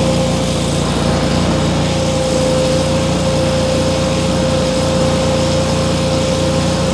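Miller Bobcat engine-driven welder-generator running at a steady speed, a constant engine drone with a steady tone over it.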